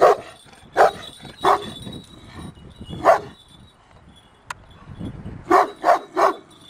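Kangal shepherd dog barking: seven single barks at uneven gaps, the last three coming in quick succession near the end.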